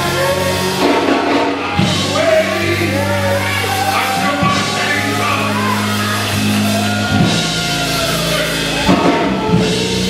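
Church music: sustained keyboard chords and a drum kit playing under a man's singing voice.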